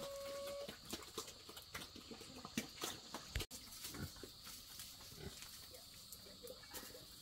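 Pigs grunting faintly, with scattered sharp crackles from a wood fire.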